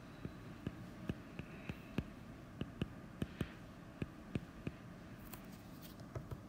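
Light stylus taps and clicks on a drawing tablet while handwriting, irregular and a few per second, over a faint steady hiss.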